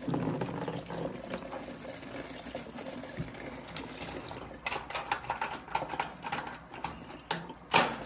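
Water running from a kitchen faucet sprayer over a refrigerator's plastic air duct, melting the ice that clogs it. In the second half come clicks and knocks as ice and plastic are handled, with a sharp knock near the end.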